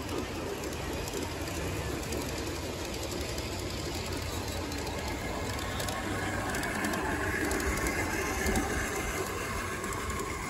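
Large-scale (G-scale) model freight train rolling steadily along garden railway track: a continuous rumble of many metal wheels on the rails, with scattered faint clicks.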